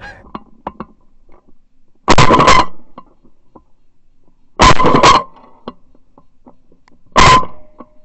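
Three shotgun shots fired at a decoying Canada goose, about two and a half seconds apart, each a loud blast that rings out for about half a second.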